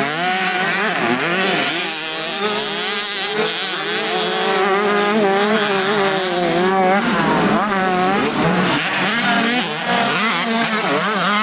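Several motocross bikes racing together, their engines revving up and down and overlapping as the riders work the throttle around the track.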